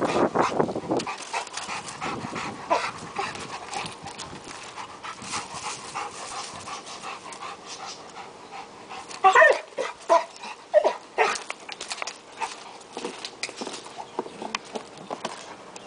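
Dog panting hard for about the first second, then crackling about in dry leaf litter, with a short run of whines about nine to eleven seconds in.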